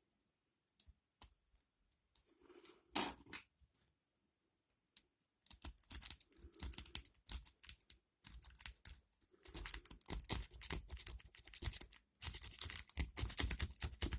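A lock pick working the pin stacks of an ASSA Ruko 2 padlock. First a few scattered light clicks and one sharp click about three seconds in, then three long runs of rapid metallic clicking and scraping as the pick is run through the keyway.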